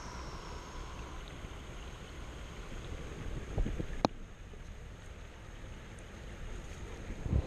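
Shallow creek water running with wind rumbling on the microphone. A soft knock comes about three and a half seconds in, a sharp click just after, and a louder knock at the very end.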